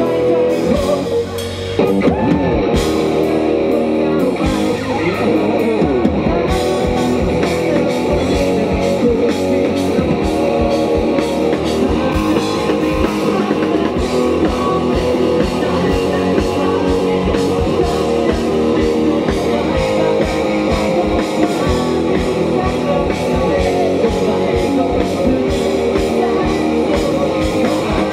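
Live rock band playing an instrumental passage without vocals: electric guitar lead with pitch bends over a drum kit.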